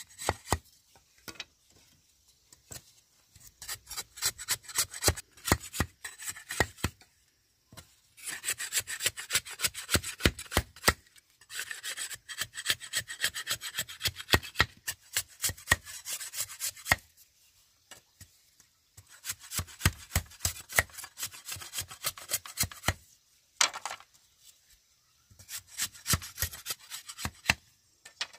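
Machete blade shaving and scraping bamboo strips against a wooden log. It goes in quick runs of many rapid strokes, each run lasting a few seconds, with short pauses between runs.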